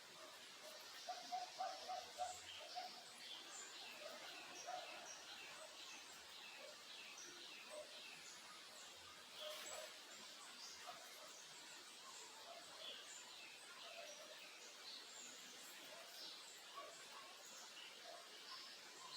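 Several small birds chirping and calling, with many short high chirps overlapping over a steady faint rushing hiss. About a second in there is a quick run of lower, louder notes.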